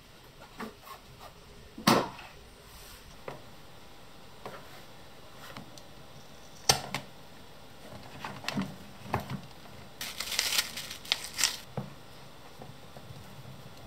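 Hand-work on a leather sheath: scattered sharp clicks and taps as the leather and metal tools are handled, with a burst of rustling and scraping about ten seconds in.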